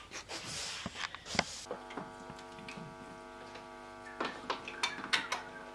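A push broom sweeping a laminate floor. About two seconds in, a steady electrical hum starts from a guitar amplifier, with a few sharp clicks as cables are handled at its pedalboard.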